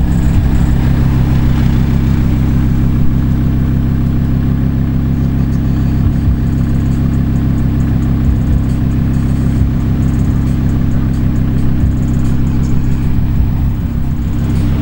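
Novitec Torado Lamborghini Huracán's V10 engine idling steadily at the exhaust.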